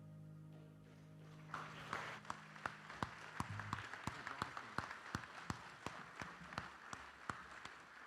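Audience applauding, beginning about one and a half seconds in as the last held notes of a piece of music die away, then thinning out near the end.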